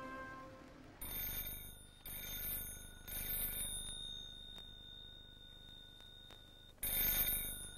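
Bell of an old rotary-dial desk telephone ringing: three rings about a second apart, then one more near the end.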